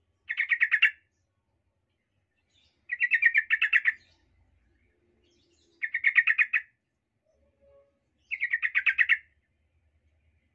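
Yellow-vented bulbul (trucukan) giving four bursts of rapid chattering notes, each about a second long and a few seconds apart. It is the kind of call bird keepers use as a lure to provoke other bulbuls.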